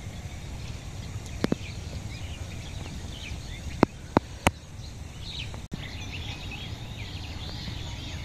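Steady open-air ambience with faint bird chirps, broken by a few sharp clicks or snaps, a pair about a second and a half in and three close together around four seconds in.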